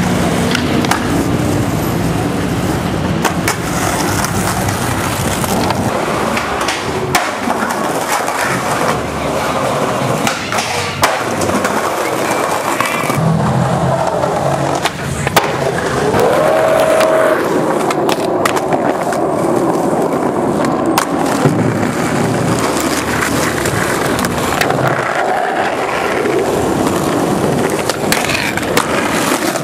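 Skateboard wheels rolling on hard pavement, with sharp clacks of the board hitting the ground now and then.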